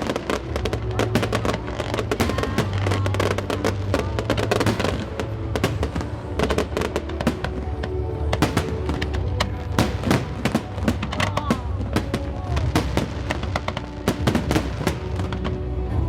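Fireworks bursting and crackling in rapid succession, densest in the first few seconds, over music with steady held notes.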